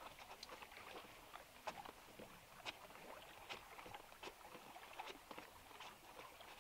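Faint, irregular clicks and light rustles of a flexible LED light strip being handled and pressed along a car's interior trim, about one or two sharper ticks a second.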